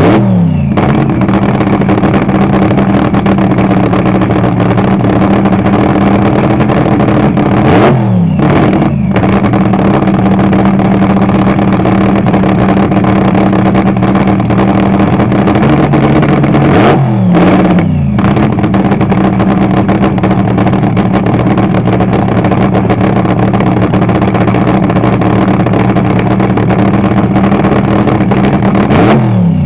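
Supercharged nitro-burning V8 of a front-engine AA/FD dragster running at a loud, steady cackle, fire spitting from the open headers. Its note briefly swoops three times, roughly every nine seconds.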